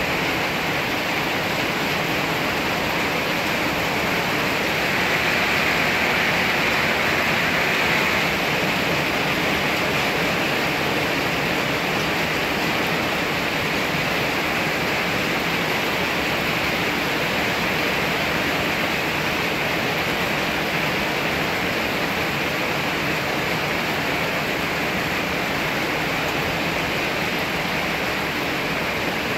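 Heavy rain pouring down in a thunderstorm, a steady dense hiss that swells slightly a few seconds in.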